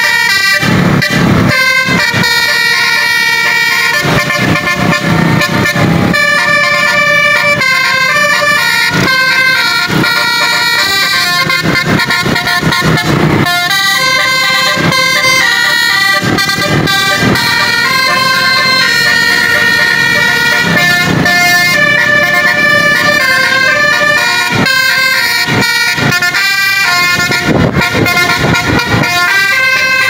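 Telolet basuri, a multi-trumpet musical air horn on a tour bus, playing a continuous melody of held notes that step from pitch to pitch every second or so.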